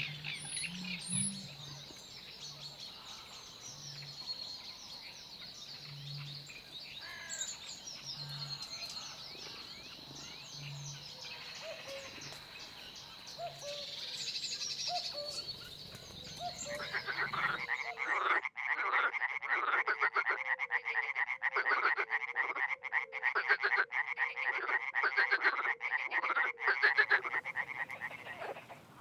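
Wetland ambience. At first a low call repeats about every second and a half under a steady high trill and scattered bird chirps. About eighteen seconds in it changes abruptly to a loud, dense chorus of frogs croaking in rapid pulses.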